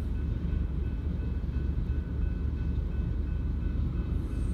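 Slow-moving freight train of tank cars rolling through a road crossing: a steady low rumble, with faint high-pitched ringing tones held over it.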